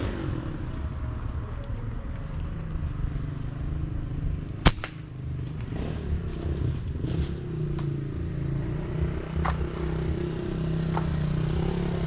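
Motorcycle engine running steadily in the background, with one sharp snap about five seconds in and a few lighter clicks after it.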